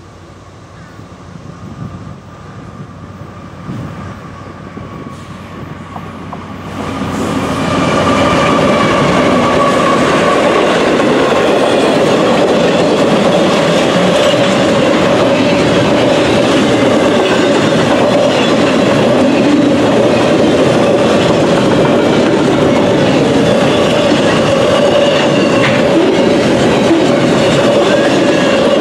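Double-stack intermodal container freight train approaching and passing. The rumble builds over the first several seconds, then turns loud and steady about seven seconds in as the train reaches the spot, with a steady ringing tone over the rumble of the rolling cars.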